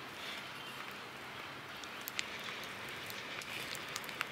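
Faint steady outdoor background hiss with a few small, sharp clicks.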